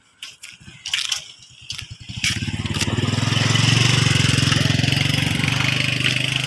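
Motorcycle engine running close by, coming in about two seconds in and growing louder, with a fast low pulsing from its firing. A few short sharp clicks come before it.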